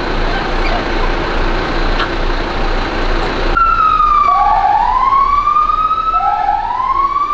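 A fire engine siren switches on about three and a half seconds in and wails in slow rising sweeps, one about every two seconds. Before it, a steady rumbling noise runs and then cuts off suddenly.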